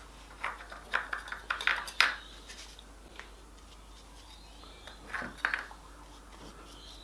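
Light wooden clicks and knocks as glued hardwood strips are handled and fitted: a quick run of sharp clicks from about half a second to two seconds in, and a shorter cluster a little after five seconds.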